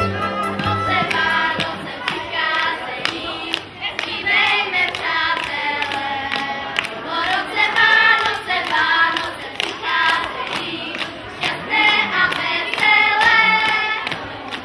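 A group of children singing a song together into a handheld microphone, clapping along in time.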